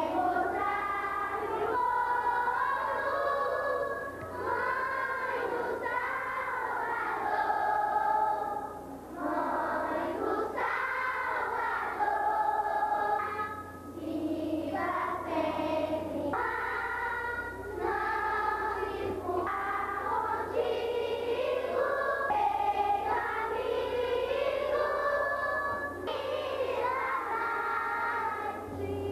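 A group of children singing a hymn to Our Lady together, in phrases a few seconds long, over a steady low hum.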